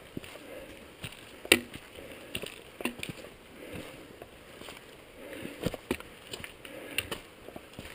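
Footsteps of hikers on a rocky trail: irregular scuffs and sharp knocks of boots on stone, the loudest about a second and a half in, over soft rustling.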